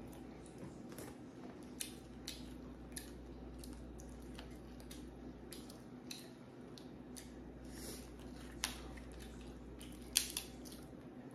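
Close-up eating of shrimp and seafood: scattered sharp clicks and crackles of handling and chewing. The loudest pair comes about ten seconds in, over a low steady hum.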